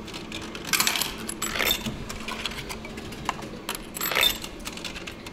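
Coins dropped one at a time into a vending machine's coin slot, each clinking down through the coin mechanism as it is accepted. Several short metallic clinks, roughly a second apart.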